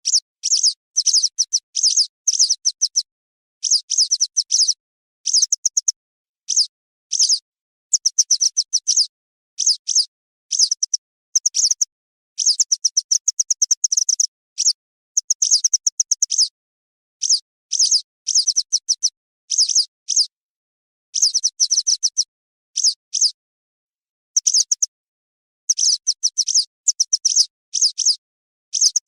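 Western yellow wagtail calling: bursts of rapid, high, thin chirps, each burst lasting from about half a second to two seconds, separated by short silences.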